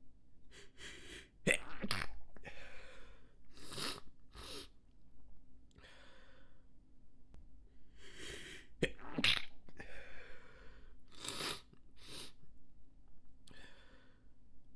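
A person's stifled sneezes: short, sharp, held-in bursts, two close together about a second and a half in and two more about nine seconds in. Breathy inhales and snorts come in between.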